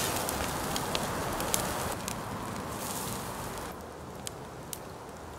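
Hamburger patties sizzling on a steel grate over a wood fire, with sharp pops and crackles from the burning wood. The sizzling hiss drops away a little under four seconds in, leaving scattered crackles.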